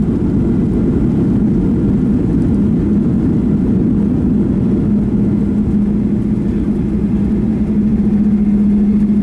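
Inside the cabin of a Boeing 737-800 during landing: a steady low roar from the CFM56 jet engines and airframe, with a low hum that grows stronger from about halfway through.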